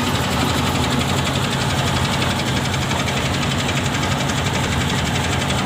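A fishing boat's engine running steadily: a low, even hum under a constant hiss.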